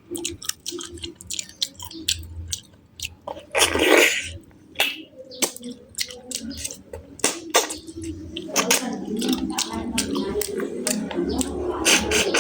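A person chewing food close to the microphone, with many sharp wet mouth clicks, a louder noisy burst about four seconds in, and busier chewing in the last few seconds.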